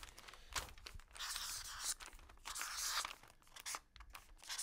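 Pen writing on a sheet of paper: several scratchy strokes, each lasting up to about a second, with short gaps between them.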